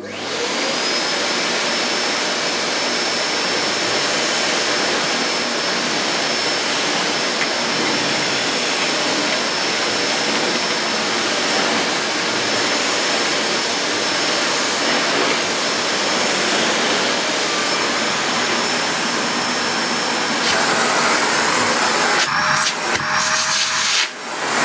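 Sebo K1 Eco cylinder vacuum cleaner switched on: the motor cuts in abruptly and comes up to speed with a high whine over a steady rushing roar, then runs evenly. Near the end the sound turns brighter and a few knocks come through as the hose is handled.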